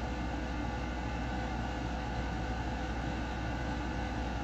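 Steady background hum and hiss with a faint constant tone: room tone with no distinct events.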